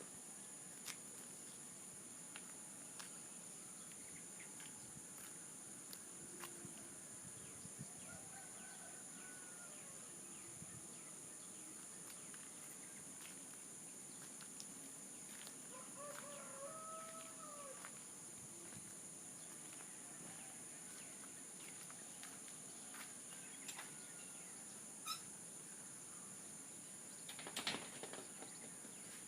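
Steady high-pitched insect drone with a distant rooster crowing faintly, once about eight seconds in and more clearly around sixteen seconds. Scattered small clicks run throughout, with a short rustling burst near the end.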